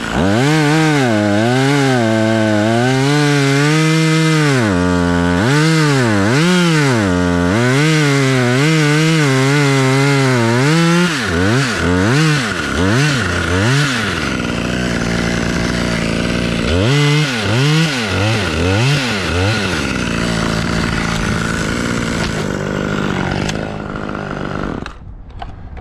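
Two-stroke chainsaw making the felling back cut in a white pine trunk, its engine speed rising and falling as it works through the wood. Later come a few short revs and lower running before the saw cuts off near the end.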